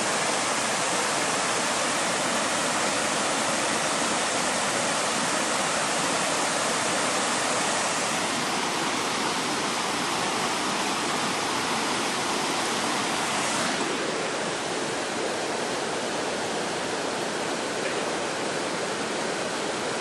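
Steady rush of water from a river's waterfall and rapids, slightly softer after about fourteen seconds.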